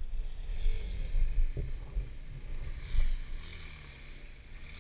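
Off-road motorcycle engine running on a muddy dirt track, its note wavering up and down, with a single knock about a second and a half in.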